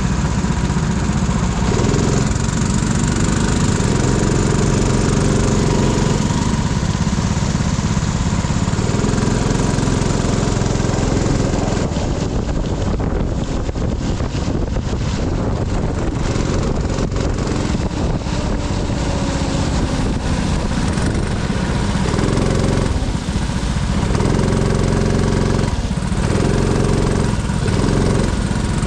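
Go-kart engine running at speed through a lap, its pitch climbing and dropping over and over as the throttle is opened and lifted. For a stretch in the middle the sound turns choppy and thinner.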